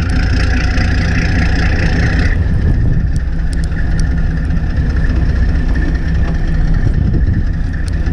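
Fishing boat's engine running steadily at idle, a low drone and hum; a higher whine layered over it stops about two seconds in.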